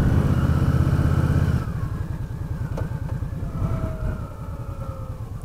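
Motorcycle engine running under way with wind rush. About a second and a half in the throttle closes and the engine falls to a quieter, evenly pulsing note as the bike slows for a stop sign.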